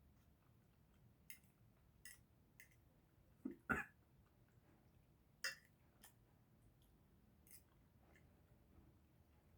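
Faint eating noises: scattered short, wet clicks of chewing and lip smacking, with a louder double smack a little over three seconds in.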